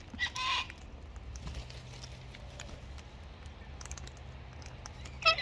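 Short harsh parrot squawks: one about half a second in and a sharper, louder one near the end, with faint clicks between.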